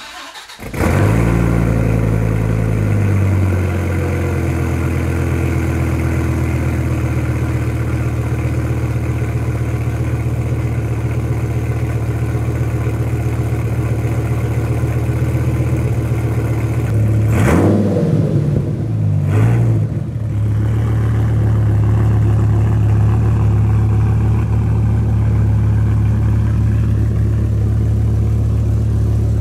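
2001 Dodge Viper GTS's 8.0-litre V10 cold-starting: it fires with a sudden loud burst about half a second in, then runs a fast idle that drops slightly in pitch over the first few seconds and settles into a steady, deep idle through the twin centre exhausts. Two brief louder bursts break the idle about two-thirds of the way through.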